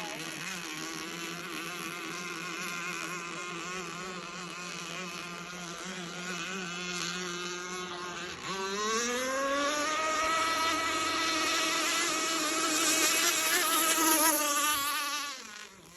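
The Redline 30.5cc two-stroke gas engine of an RC catamaran runs at steady low speed. About halfway through it is throttled up to a much higher pitch and louder, climbs a little more, then drops away sharply just before the end.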